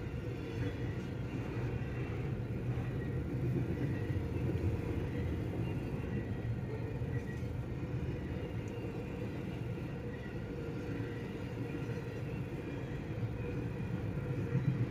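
Double-stack intermodal freight train cars rolling past a level crossing: a steady rumble of wheels on rails, heard through the windows of a car stopped at the crossing.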